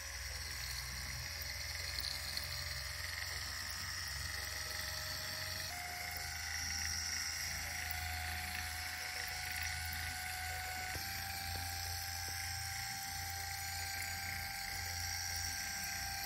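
Cyberdog Wheelbarrow balancing robot toy's gyroscope motor whirring steadily as it balances, with a steady low hum under it. Its pitch steps up slightly about six seconds in and shifts again near eleven seconds.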